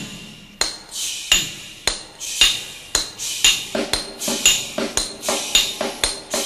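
A steel-driving hammer striking steel: sharp metallic clangs that ring, about two a second, coming faster toward the end.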